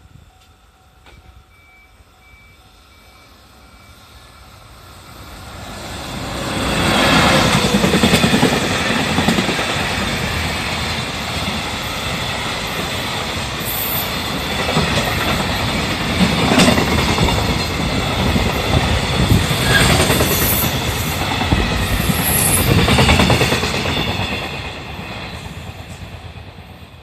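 Freight train hauled by an EF65 electric locomotive approaching and passing a level crossing. The level-crossing warning bell dings at first, then the train builds up to a loud, steady rumble with the rhythmic clickety-clack of the wagon wheels over rail joints, which fades near the end as the last wagons go by.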